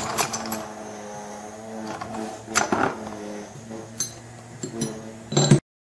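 Steel clamps and T-bolts clinking and knocking against each other in a plastic tub as a hand sorts through them, in a few irregular bursts, over a steady low hum. The sound cuts off suddenly near the end.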